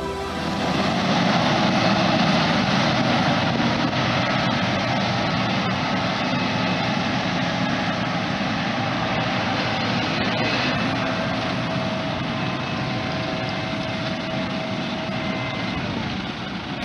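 John Deere T660 combine harvester running steadily under harvesting load, a dense even mechanical noise with a few faint steady tones.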